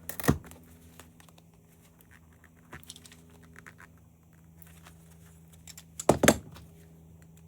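Clicks and knocks of small parts being pried and handled while a brass piece is worked out of a security camera. There is a sharp click at the start, a few faint ticks in the middle and two loud knocks about six seconds in, over a faint steady hum.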